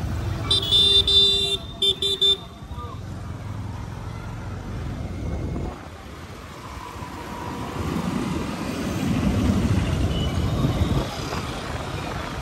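Vehicle horn honking, one long blast followed by two short ones, over the steady low rumble of road traffic.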